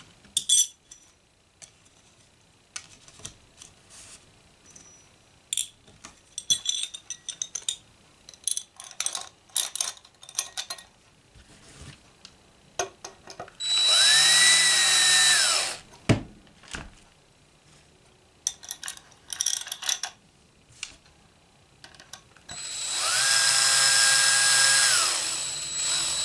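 Cordless drill driving the neck-plate screws into a bass guitar body, bolting the neck on: two runs, one about halfway and a longer one near the end, each whine rising, holding steady, then dropping off as the screw seats. Before them, scattered clicks and rattles of small metal parts being handled.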